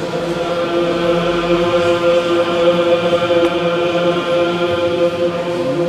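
Byzantine chant: a man's voice sung into a microphone holds one long note, bending in pitch near the end.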